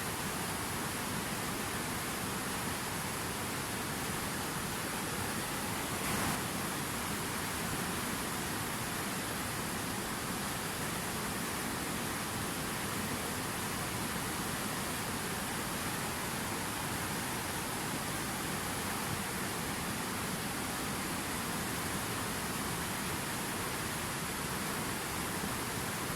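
River water flowing: a steady, even rushing, with a brief slight swell about six seconds in.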